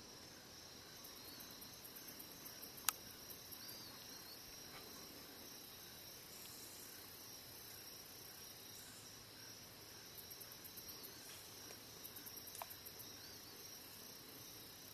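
Faint outdoor ambience of insects trilling steadily and high-pitched, with a sharp click about three seconds in and a fainter one near the end.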